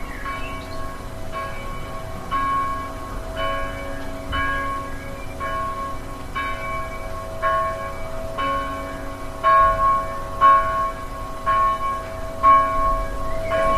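Church bells ringing, struck about once a second, with several overlapping tones ringing on between strikes.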